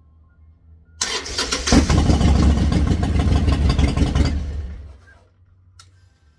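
Harley-Davidson Sportster's air-cooled V-twin started on the electric starter about a second in, catching almost at once and running for about three seconds before dying away. It starts readily on a new starter, new battery and new 4-gauge battery cables.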